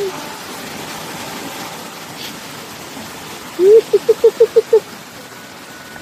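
Small rocky stream running and splashing steadily over stones. A bit past the middle comes a brief, louder run of about six quick high-pitched calls.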